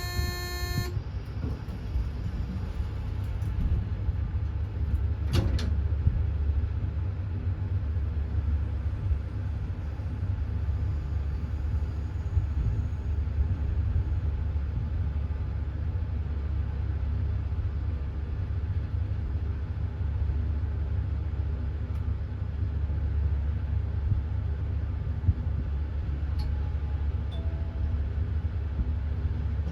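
Elevator car travelling, with a steady low rumble and hum throughout. A short electronic tone sounds at the very start, and there is a single sharp click about five seconds in.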